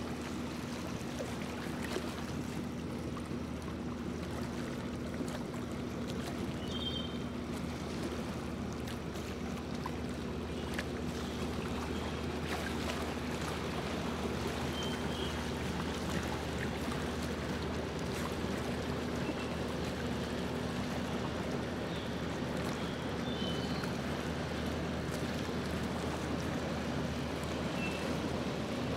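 Motorboat underway at a steady pace: the engine drones evenly under a constant wash of water rushing along the hull.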